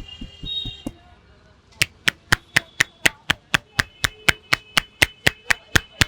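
Barber's hands striking a customer's head in a percussive head massage: sharp, even slaps about four a second, starting a little under two seconds in.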